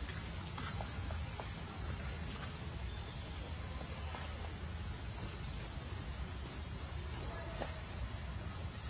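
Outdoor forest ambience: a steady high insect drone over a low rumble, with two short bird chirps, about two seconds in and again about four and a half seconds in.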